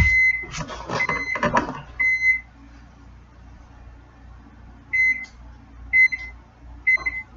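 Microwave oven beeping in short high electronic tones, a few quick beeps in the first two seconds and then about one a second near the end. A faint low hum of the running microwave lies between them.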